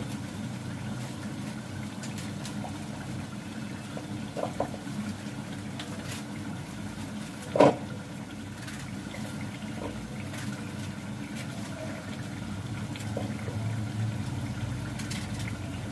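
Beef and masala cooking in an open pot on a gas stove, a steady low sizzle. A sharp knock comes about seven and a half seconds in, and a couple of faint clicks come around four and a half seconds.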